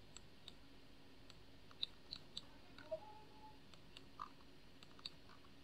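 Near silence with faint, irregular computer-mouse clicks and scroll-wheel ticks as a chart is zoomed and scrolled.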